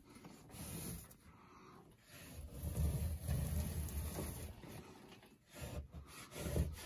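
Flexible plastic spatula scraping dampened popcorn ceiling texture off drywall in uneven strokes, the wet texture shearing off in flakes, over a low rumble.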